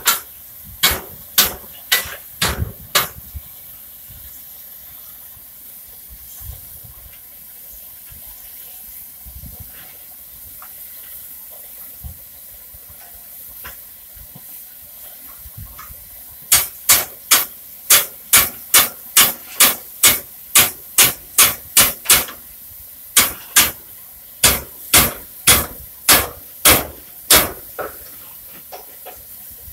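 German-built steam locomotive chuffing: runs of sharp exhaust beats, about two a second, over a steady hiss of steam. A few beats come at the start, then mostly hiss until a long run of chuffs starts about halfway through, with a short break near the end.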